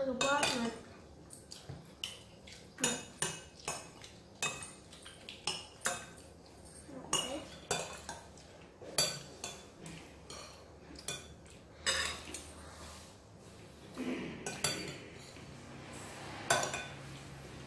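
Metal spoons and forks clinking and scraping against ceramic plates as people eat rice, in irregular short clinks throughout.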